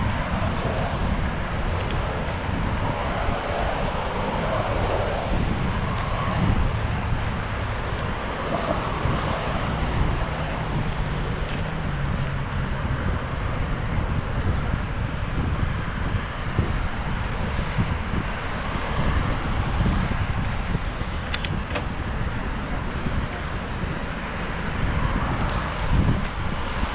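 Wind buffeting a GoPro Hero7's microphone on a moving bicycle, a steady rumbling rush, mixed with the hiss of car traffic on the road alongside.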